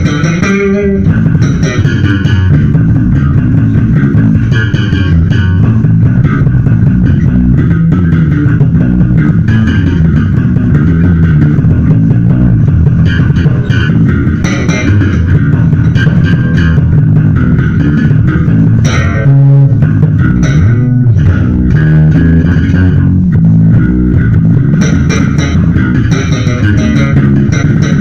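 Electric bass guitar played slap-style in a funk-rock instrumental, a steady busy groove with no pause.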